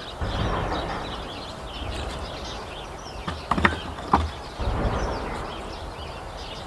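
Small birds chirping and singing continuously, with low rumbling underneath and a few sharp knocks a little past the middle.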